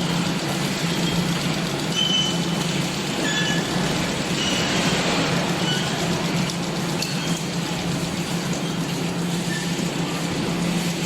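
Factory machinery running: a steady mechanical hum and noise, with short high-pitched squeaks and tones scattered through it.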